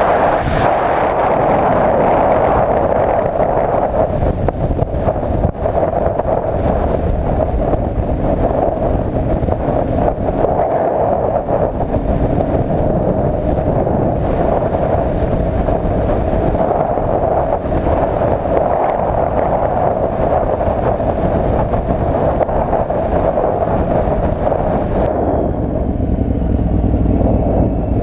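Adventure motorcycle riding along a dirt road at a steady speed, its engine running under wind noise on the microphone. The sound changes abruptly about three seconds before the end.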